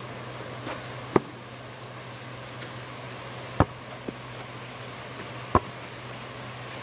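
A basketball striking hard surfaces in play: three sharp knocks about two and a half seconds apart, with a fainter one after the second, over a steady low hum.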